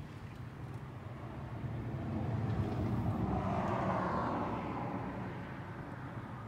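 A vehicle passing by: its noise swells over about two seconds, peaks midway and fades away, over a steady low hum.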